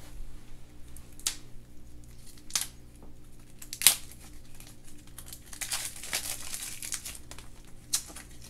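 A toy's plastic packaging crinkling and being torn open by hand. There are a few sharp clicks or snaps along the way, the loudest about four seconds in.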